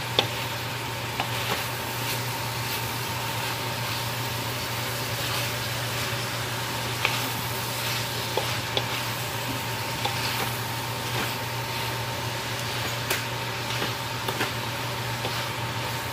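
Pork and mixed vegetables sizzling in a hot metal wok as they are stir-fried with a wooden spatula, a steady frying hiss with scattered scrapes and taps of the spatula against the pan.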